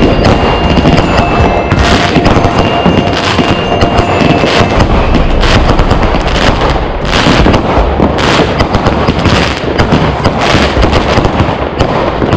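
Aerial fireworks going off in a dense barrage: rapid bangs several times a second over continuous crackling, without a break.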